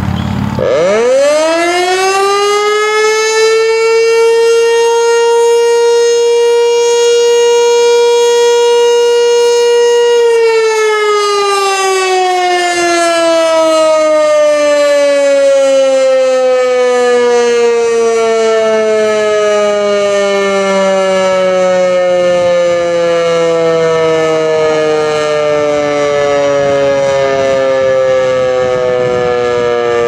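American Signal T-121 Tempest outdoor warning siren sounding a short alert test: it winds up quickly to a steady pitch, holds it for about ten seconds, then winds down with its pitch falling slowly.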